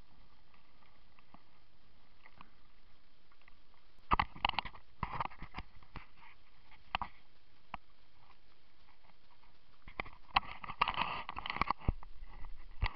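Handling noise from a body-worn camera: irregular rustling and knocks in two clusters, about four seconds in and again about ten seconds in, over a steady background hiss.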